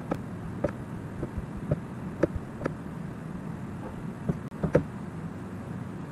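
Computer mouse button clicks, about ten short sharp ones at irregular intervals, over a steady faint room hiss.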